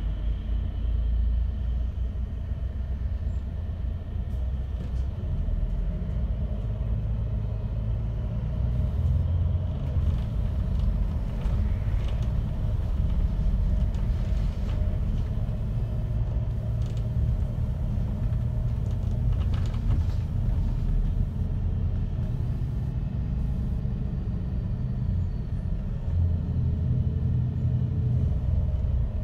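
Inside a MAN Lion's City A39 double-decker city bus under way: a steady, loud low rumble of engine and road noise, with a few faint knocks and rattles.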